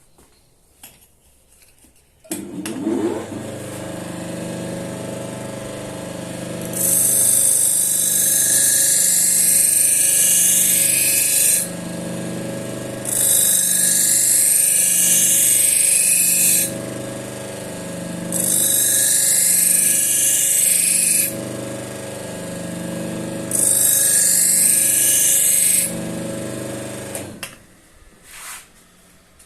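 Motor-driven paper wheel charged with chromium oxide in linseed oil spinning up, running with a steady hum, and then winding down. Over the hum come four passes of a knife blade against the spinning wheel, each a few seconds of loud high hiss, as the edge is finished with four passes on one side.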